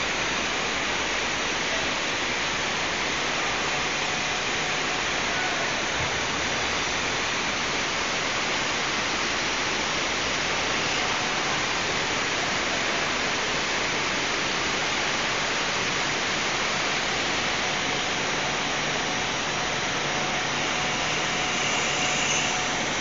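Large CNC roll-turning lathe running as it cuts a steel roll: a steady, even hiss of machine and cutting noise with no distinct rhythm or breaks.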